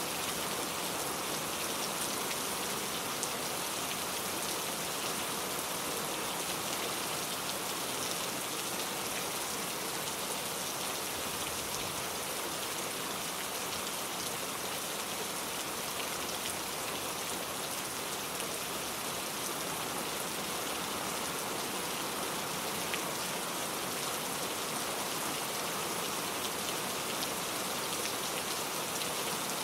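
Heavy rain falling steadily: an even, unbroken hiss of rain with scattered drop ticks.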